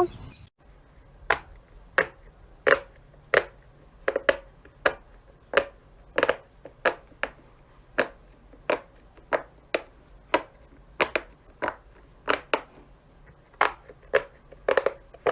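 Pop-it fidget toy bubbles being pressed one after another, a sharp pop each time at about two a second, in an uneven rhythm.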